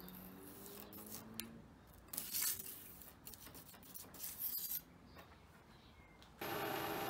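A steel rule scraping and rubbing against a welded steel base in a few short bursts, checking it for warpage from the welding. Near the end a milling machine comes in, running steadily and much louder.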